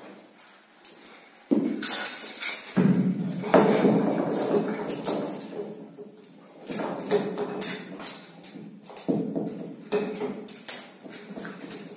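Steel chain of a dip belt and the weight plates hung on it clinking and jangling as the load is unhooked and handled. The clanks come in irregular runs, busiest about three to five seconds in, then scattered jingles.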